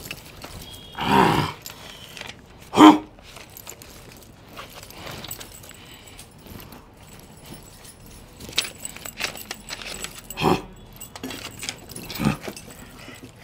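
Metal jangling and clinking from heavy chain jewellery and steel tableware, with small clicks and rustling; two louder short knocks come about one and three seconds in, and a run of small clicks comes near the end.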